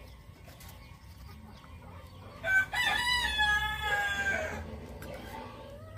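A rooster crowing once. The crow starts about two and a half seconds in and lasts about two seconds, a short note followed by a long, slightly falling one.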